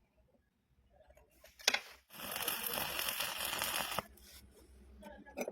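A sharp click, then electric arc welding on mild steel crackling steadily for about two seconds before dying down to a faint hiss with a few clicks.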